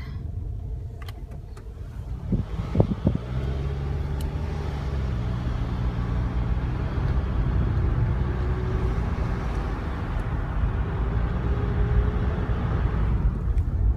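Car engine running with road noise, heard from inside the cabin as the car drives slowly. The hum steadies about three seconds in, just after a few sharp knocks.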